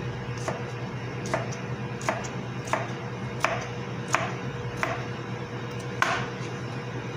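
Chef's knife chopping cucumber on a plastic cutting board: a sharp knock about every 0.7 s, roughly eight strokes, over a steady low hum.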